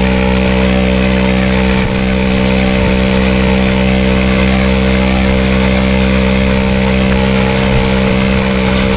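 Small gasoline engine on a homemade motorized skateboard running at a steady, constant speed, a continuous even drone with no change in pitch as the board rolls along.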